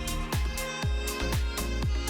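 Background electronic music with a steady beat of deep kick drums, about two a second, under held synth tones.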